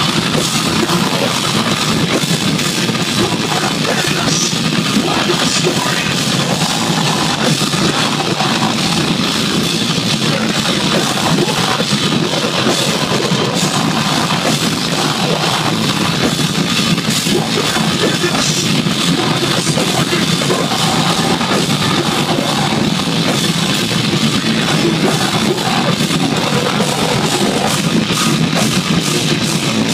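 Live metalcore band playing loud and dense: distorted electric guitars, bass and drum kit. The sound is overdriven and crowded, as recorded on a phone in front of a festival stage.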